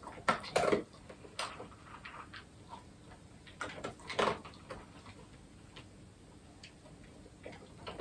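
Scattered light clicks and rustles of hands handling a small object, coming at uneven intervals.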